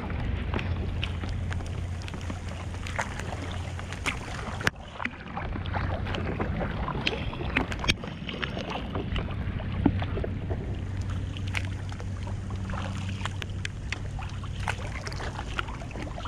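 Kayak paddle strokes, the blades dipping and splashing in muddy floodwater with irregular sharp splashes and knocks, over a steady low rumble.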